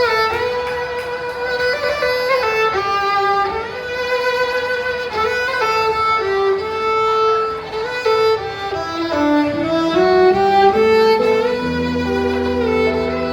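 Fiddle playing a slow melody of held and sliding notes, with lower sustained accompaniment notes coming in near the end.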